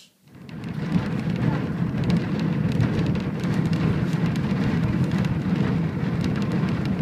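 Wind buffeting the microphone together with the rumble and irregular clatter of a horse-drawn tram rolling along its rails, rising to a steady loud rush about half a second in as the tram gets under way.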